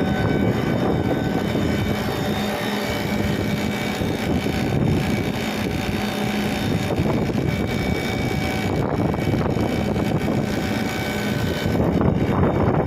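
Vacuum pump running steadily, evacuating a refrigeration system around a newly installed screw compressor, heard as a loud, even mechanical drone with a faint steady hum.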